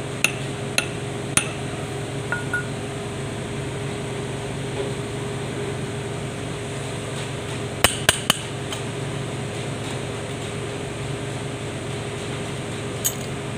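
Sharp metallic clinks and taps of steel tools and parts knocking against a truck PTO housing and shaft as it is worked on by hand: a few scattered at first, then a quick cluster of three about eight seconds in. A steady low hum runs underneath.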